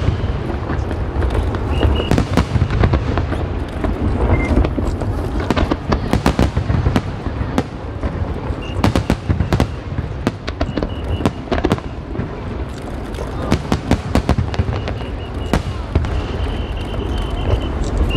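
Fireworks display: a rapid series of sharp bangs and crackles from bursting shells over a continuous low rumble.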